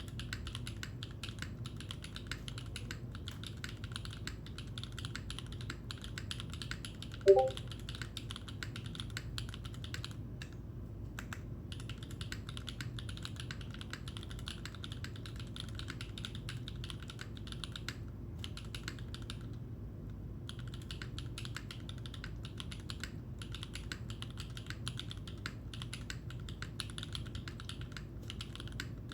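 Steady fast typing on a Leaf65 top-mount mechanical keyboard with Gateron Modern Gray switches and GMK Botanical keycaps: a dense stream of key clacks with a couple of short pauses. One brief, louder ringing note sounds about seven seconds in.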